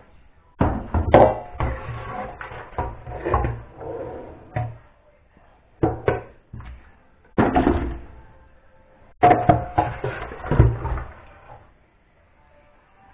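Knocking and clattering of a plate and wet fish against a stainless steel sink as the fish are handled, in several short bouts with pauses between.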